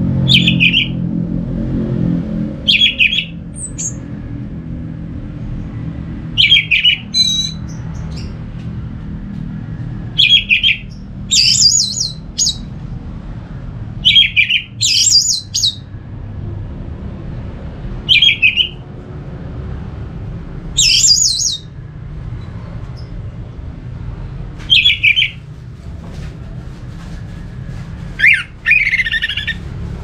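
Orange-headed thrush singing: short, loud song phrases come every three to four seconds, some doubled into a higher, richer second part. A steady low rumble runs underneath.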